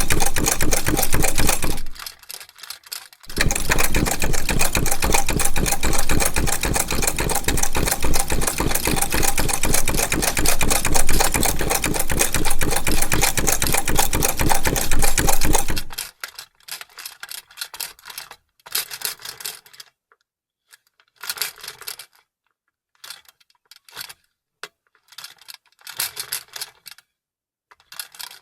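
Vintage sewing machine stitching at a fast, steady rate, with a brief stop about two seconds in. It then runs on until about halfway and stops. After that come short, separate bursts of clicking and rattling with silent gaps between them.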